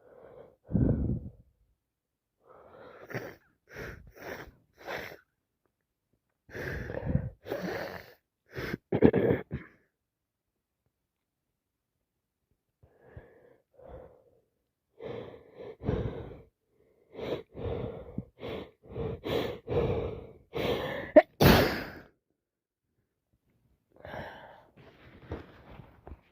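A woman sneezing over and over from a cold and allergies, in clusters of short, sharp sneezes with quiet pauses between them and breaths between sneezes; the sharpest sneeze comes about 21 seconds in.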